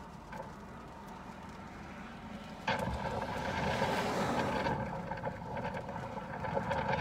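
Car cabin noise during a rainstorm: a steady low hum, then a sudden louder rush with a steady hum about two and a half seconds in, as the windshield wiper sweeps across the rain-spotted glass.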